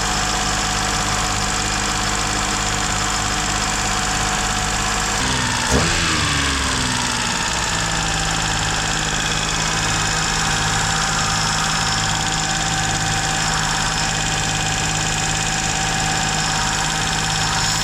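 Toyota Duet engine idling fast, which the owner takes for an air leak after refitting the throttle body. About six seconds in, the engine speed drops quickly and settles into a lower, steady idle.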